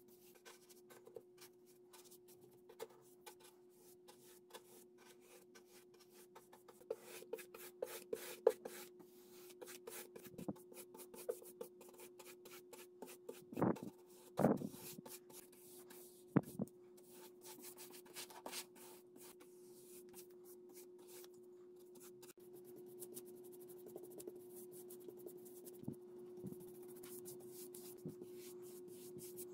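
Paintbrush bristles brushing paint onto wooden furniture panels and trim: soft repeated scratchy strokes, with a few louder knocks about halfway through. A steady faint hum runs underneath.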